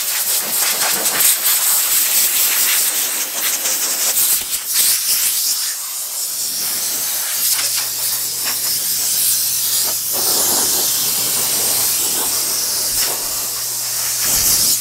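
Water spraying hard against a car's underside, a loud steady hiss that cuts off abruptly at the end, with a steady low hum joining about halfway through.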